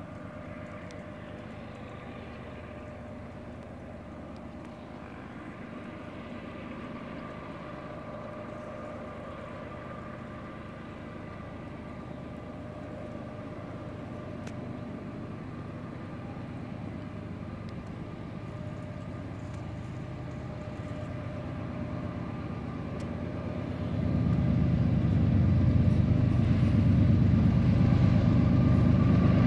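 BNSF GE diesel locomotives leading an intermodal freight train on the approach: a low rumble that slowly grows louder, then jumps up sharply a few seconds before the end as the train draws near.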